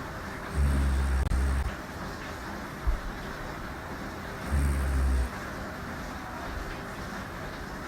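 A woman snoring in her sleep: two low snores about four seconds apart, each lasting about a second, over a steady background hiss, with a brief low knock between them.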